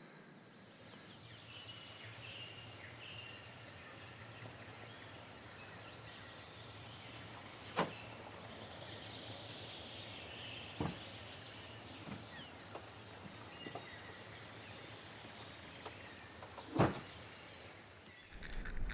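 Faint outdoor ambience with scattered thin chirps and a few sharp knocks, the loudest knock near the end.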